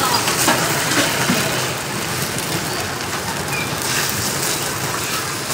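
Coconut batter sizzling as it is ladled into the hot cups of a num krok pan, a steady crackling hiss.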